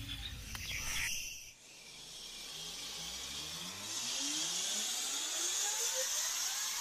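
Suspense riser sound effect: after a brief drop to near silence, a rising whine climbs steadily in pitch for several seconds, with a buzzing hiss swelling above it toward the end.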